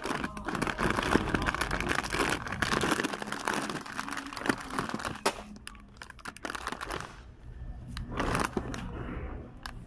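Plastic snack bags crinkling as they are handled. The crinkling is dense for the first five seconds or so, thins to a few scattered crackles, and comes back in a short burst about eight seconds in.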